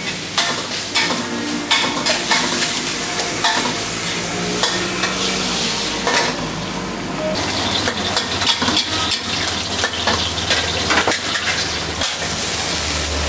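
Stir-frying in a wok: food sizzling while a metal spatula clanks and scrapes against the pan, cooking a dish of gravy noodles. A low hum joins about halfway through.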